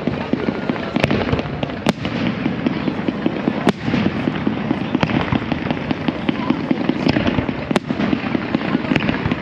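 Fireworks going off: irregular sharp bangs about a second apart, with fainter crackling between them, over the steady chatter of a large crowd.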